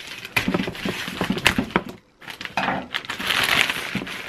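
Scissors snipping through a plastic mailing bag, with rustling clicks. After a brief pause about two seconds in, the plastic crinkles steadily as the box inside is pulled out of the bag.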